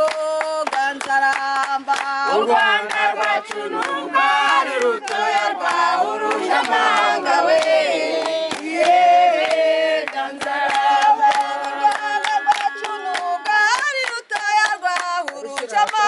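A group of men, women and children singing together while clapping their hands, with many sharp claps running through the song.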